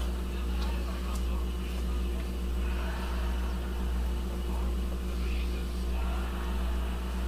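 A steady low electrical hum, with faint soft scraping of a wooden spoon stirring thick melting chocolate in a cast-iron pot.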